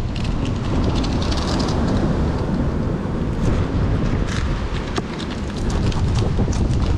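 Wind buffeting the microphone in a steady low rumble, with scattered light clicks and rustles from close handling.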